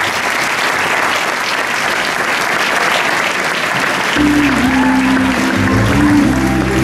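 Audience applauding steadily. About four seconds in, music starts over the clapping, with low held notes and a bass line.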